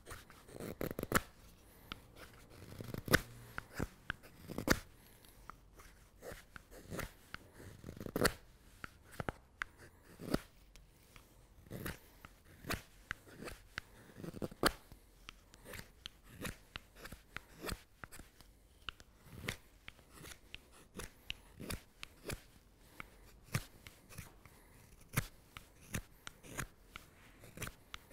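Carving knife slicing short shavings off the back of a green alder spoon bowl: a run of quick, crisp cuts at an irregular pace, several a second, with a few louder strokes in the first eight seconds.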